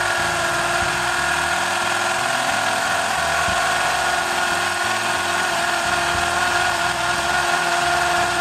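Porter-Cable PCC620 20-volt cordless hammer drill with a 3/8-inch bit, running steadily as it bores into a concrete beam: a constant motor whine over the grinding of the bit in the concrete.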